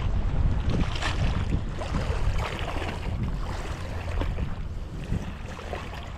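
Wind buffeting the microphone with a steady low rumble, over small harbour waves lapping and splashing irregularly against shoreline rocks.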